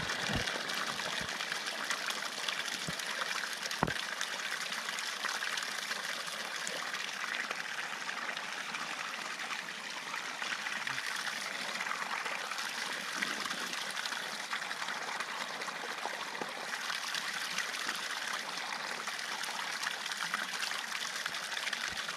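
Small mountain waterfall trickling down a rock face into a shallow stream, a steady splashing rush of water heard close up at the water's edge.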